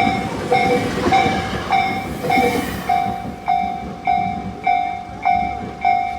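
Japanese level-crossing warning bell dinging steadily, about one strike every 0.6 seconds, while a Tobu Skytree Line train rumbles past over the crossing. The train noise dies away about three seconds in, leaving the bell on its own.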